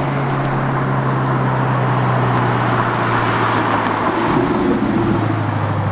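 Audi R8 sports car driving up and passing close by: a steady engine note under loud tyre and road noise, with the tone changing about four seconds in as it goes past.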